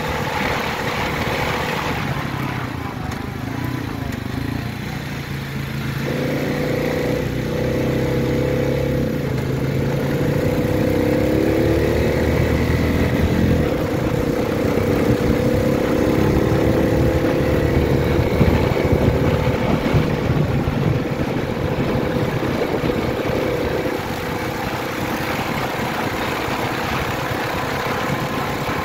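ATV engine running while under way, its pitch wavering and rising as the rider changes speed, over steady rushing noise.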